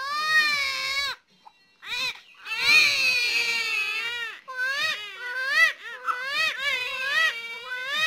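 Twin newborn babies crying together in high-pitched wails. A long wail in the middle gives way to a run of short, rising-and-falling cries, with brief gaps for breath.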